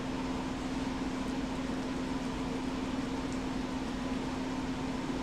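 Steady background hum with an even hiss, like a fan or air conditioner running in a small room, holding one low tone and never changing.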